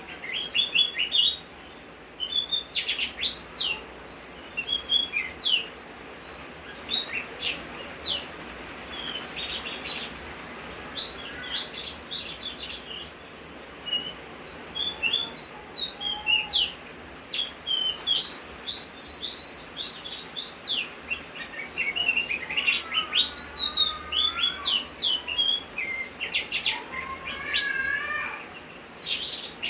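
Javan grey-throated white-eye singing vigorously: fast runs of short, sharp, high chirps and trills, broken by a few brief pauses, over a steady hiss.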